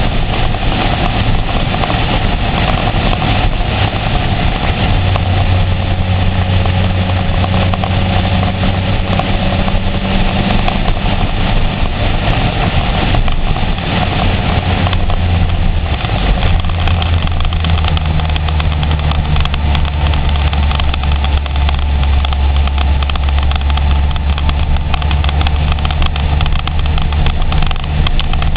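Honda CBR900RR Fireblade's inline-four engine running under way, its note holding steady and then stepping to a new pitch a few times. A steady rushing noise runs under it throughout.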